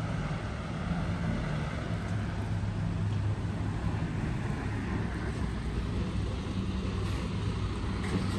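Large diesel highway coach pulling in at low speed close by, its engine running with a steady low hum.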